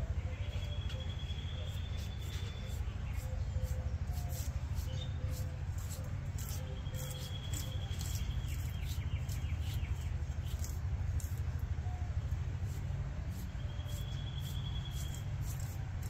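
Outdoor ambience: birds calling with a few high trills of about two seconds each, over a steady low rumble and frequent sharp clicks.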